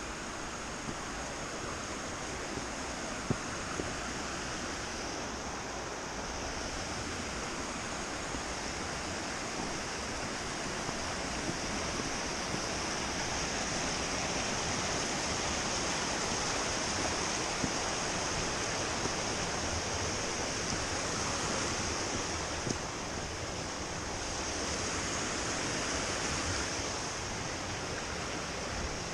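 Steady rush of flowing creek water, with a constant high-pitched hiss above it that grows louder through the middle.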